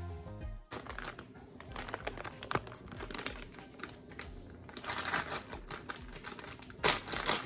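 Plastic packaging rustling and crinkling in quick, irregular crackles as a pepperoni package is handled and opened, thicker from about five seconds in, with one sharp loud crackle near the end.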